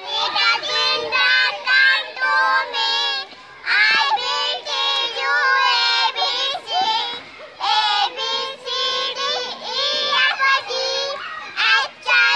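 Young girls singing a children's song together in high, clear voices, phrase after phrase with brief breaths between.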